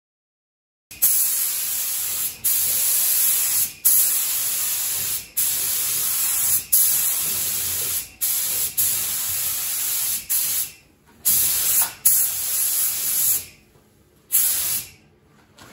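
Gravity-feed compressed-air spray gun hissing as it lays a light first coat of clear coat onto a car fender. The hiss starts about a second in and comes in repeated passes of a second or so each, with short breaks between them and two longer pauses near the end.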